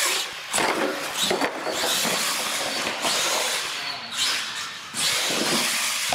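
R/C monster truck running hard on a concrete floor: a steady high whine and hiss from its motor and tyres, broken by several sharp knocks as it tumbles, lands and hits the ramps.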